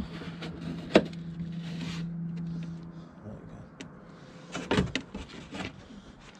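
Sharp clicks and knocks of hands working at a truck's turn-signal light housing, a sharp click about a second in followed by a steady low hum for about two seconds, and a short rattle of knocks near the end.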